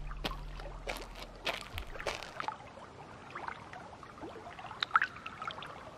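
Faint trickling water: scattered drips and small clicks, with a low hum that fades out within the first two seconds.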